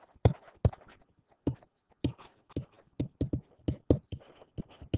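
A pen stylus tapping and clicking against a tablet screen during handwriting: a quick, irregular string of sharp taps, about four a second.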